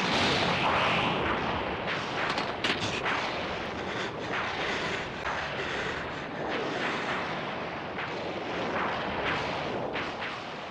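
Anime sound effects of a continuous rumbling roar with scattered sharp cracks and booms, the sound of a planet breaking apart around a fight, easing a little towards the end.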